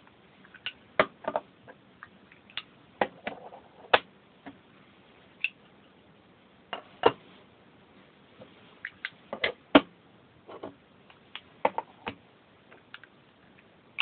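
Metal Zippo lighters being set down one after another on a hard surface: scattered sharp clicks and knocks, some in quick pairs.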